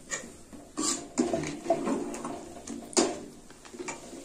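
Water poured from a steel vessel into an aluminium cooking pot, with metal utensils clinking against the pot: about five sharp, ringing clinks, the loudest about three seconds in. A steel ladle is stirring the vegetables in the pot.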